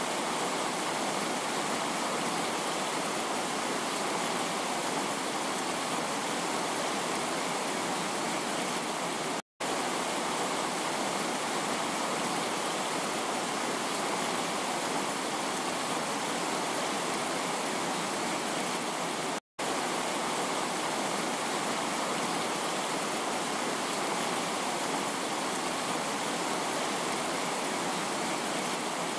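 Chitrakote Falls in flood, muddy water plunging over a wide rock ledge: a steady, dense rush of falling water. It cuts out for an instant twice, about a third and two-thirds of the way through.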